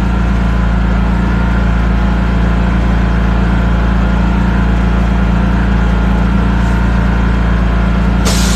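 Steady, unchanging drone of an engine or generator idling.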